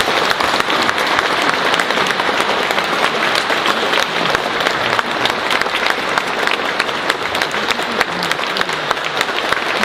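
Audience applauding: dense, steady clapping from a crowd of many hands.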